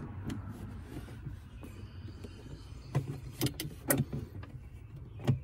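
Clicks and knocks of a Brake Buddy braking unit's pedal arm and clamp being handled and fitted onto a brake pedal, with a few sharp knocks about three to four seconds in and another near the end over a low rumble.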